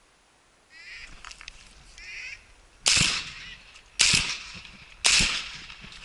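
Three shotgun shots about a second apart, the loudest sounds, each trailing off. Before them, a few short duck quacks.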